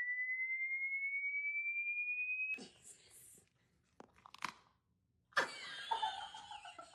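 A steady pure electronic tone rising slowly in pitch, cutting off abruptly about two and a half seconds in. Then a few faint sharp clicks, and a louder voice-like sound in the last second and a half.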